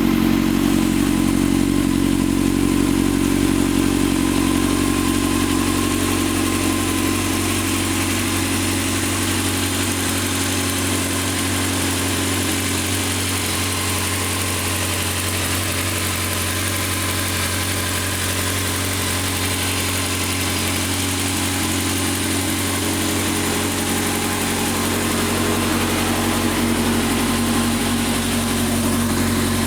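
2006 Honda CBR600 F4i inline-four engine idling steadily, with a ticking noise in the engine that is most evident from about ten seconds in to about twenty-one seconds.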